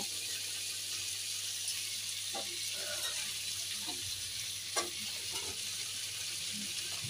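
Vegetables (cauliflower, carrots, green beans and potato pieces) sizzling steadily in ghee in a wok, with a few short scrapes and clicks of the spatula against the pan.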